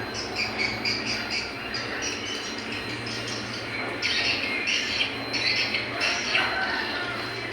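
Small birds chirping and squawking in quick, short high calls, getting busier about halfway through, over a low steady hum.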